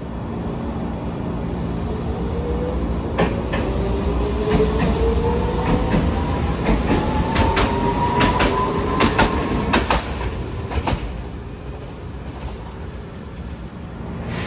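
Hiroden streetcar pulling past at close range: its traction motors whine, rising steadily in pitch as it gathers speed, over a low rumble. A run of sharp clacks comes as the wheels cross rail joints and points. The sound eases off near the end as the tram moves away.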